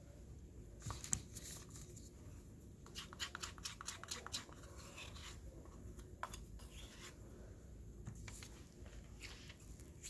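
Metal spatula scraping and tapping wet mounting stone in a mixing bowl and onto a cast: soft, scattered scrapes and clicks, thickest about three to four and a half seconds in.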